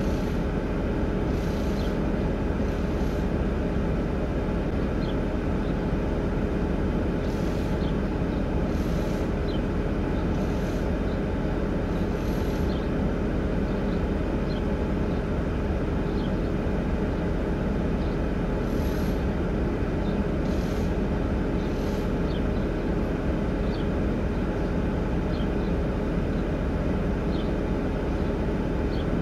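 A vehicle engine idling, heard from inside its cab as a steady low drone with a constant hum, and a few faint ticks here and there.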